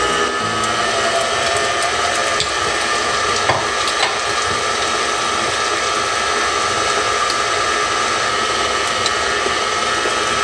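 KitchenAid 5-quart stand mixer running at a steady speed with a whine over its motor hum, its flat beater working pound cake batter in the steel bowl. A couple of light clicks come about three and a half and four seconds in.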